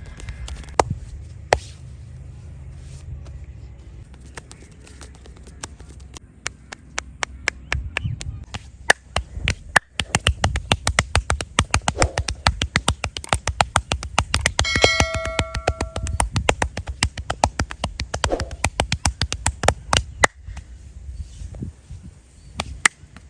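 Rapid hand slaps and taps of a head massage: scattered strokes at first, then a fast, dense run of sharp strokes from about a third of the way in until near the end. A brief ringing tone sounds in the middle.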